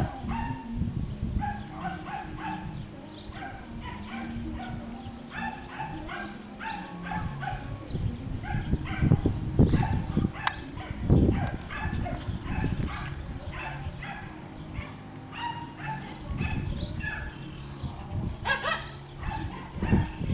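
Schnoodle puppies (miniature schnauzer and miniature poodle mix) yipping and barking in short, high calls over and over as they play. Bursts of low rumbling noise sit underneath.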